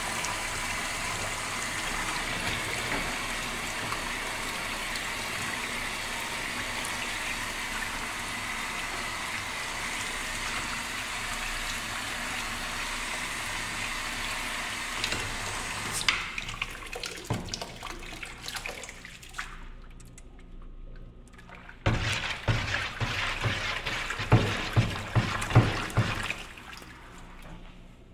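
Kitchen sink tap running steadily into the sink to flush a freshly cleared drain. It cuts off abruptly about two-thirds of the way in, followed by uneven bursts of sound near the end.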